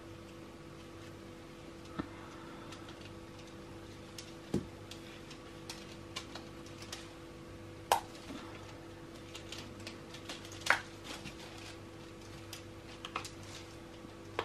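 Silicone mould being flexed and peeled back by gloved hands to release solid massage bars: scattered soft clicks and taps, the sharpest just after halfway and about three-quarters through, over a steady faint hum.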